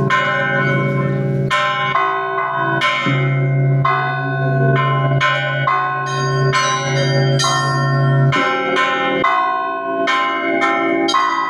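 Russian Orthodox church bells ringing (zvon): small bells struck in quick, repeating patterns over the long hum of a larger, deeper bell, which drops out about eight seconds in.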